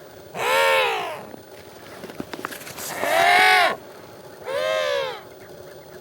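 Emperor penguins calling: three loud, pitched calls, each under a second long and rising then falling in pitch, with a pause between them.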